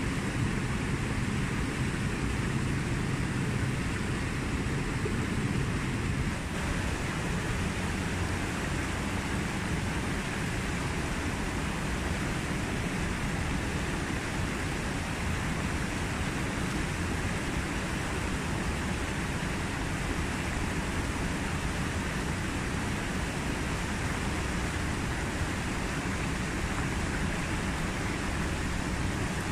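Rushing river rapids pouring over and around boulders: a steady, unbroken noise of flowing water.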